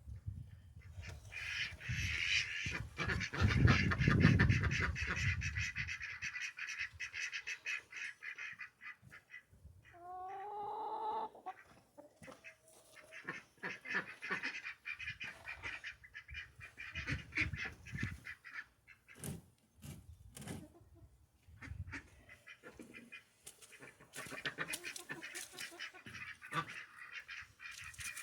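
A flock of ducks quacking and chattering in rapid runs, with a single longer rising honk-like call about ten seconds in. A low rumble on the microphone in the first few seconds is the loudest thing.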